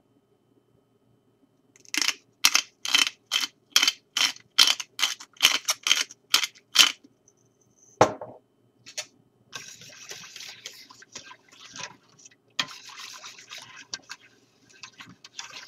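Pepper being added to the pot: about a dozen quick gritty strokes, roughly two a second, then a single knock. After that comes a wire whisk stirring a thick soup base in a stainless steel pot, a steady scraping with small clicks against the metal.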